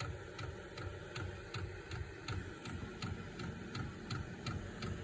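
Diesel heater's fuel dosing pump ticking steadily, about three clicks a second, while it is primed and air is bled from the fuel line before the burner lights.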